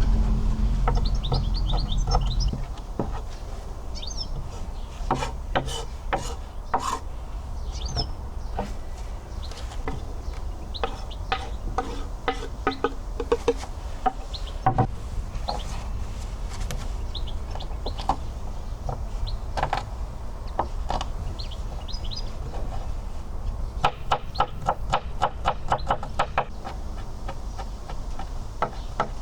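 Small birds chirping over scattered sharp taps and knocks from handling, with a quick run of taps, several a second, near the end. A low rumble fades out in the first couple of seconds.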